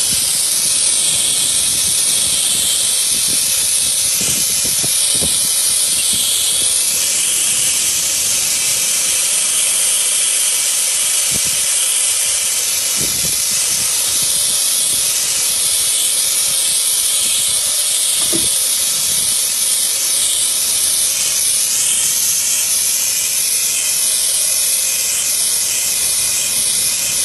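Steady high hiss of compressed breathing gas flowing from a breathing-apparatus hose and small mask held to a collapsed cat's nose to revive it. A few faint low knocks come and go.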